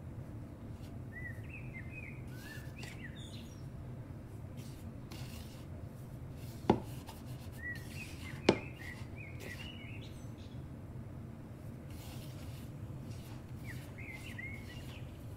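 Fingers rubbing flour in a mixing bowl to make crumbs for samosa dough, a faint scratchy rubbing over a steady low hum. Small birds chirp in short bursts, and two sharp clicks about two seconds apart, the loudest sounds, come midway.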